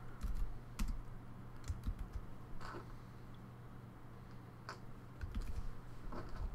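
A handful of irregular clicks and light taps at a computer desk, over a steady low hum.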